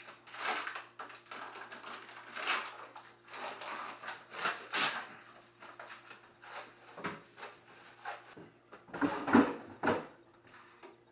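Kitchen counter handling sounds: irregular rustling and clattering as food, a plastic bag and containers are moved about, with the loudest burst of knocks about nine seconds in. A faint steady hum runs underneath.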